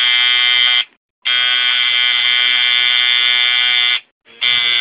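Tattoo machine buzzing at a steady, even pitch as it needles the inside of a lower lip. It cuts off just under a second in, starts again a moment later, stops again about four seconds in, and gives one short final run near the end.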